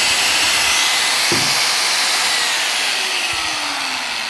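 Electric angle grinder of 720 W running unloaded at full speed, a loud, steady high-pitched motor whine. Near the end its level and pitch drop a little.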